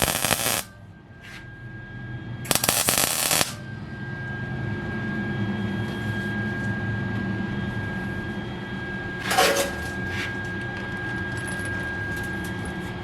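Welder laying tack welds on sheet-metal floor pans: two short bursts of about a second each, and a weaker one later, with a steady hum between them.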